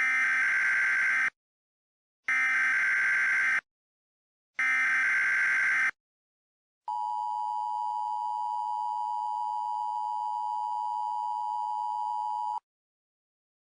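Emergency Alert System broadcast tones. First come the three SAME header bursts of digital data tones, each just over a second long. After a short pause the steady two-tone EAS attention signal sounds for about six seconds and cuts off sharply.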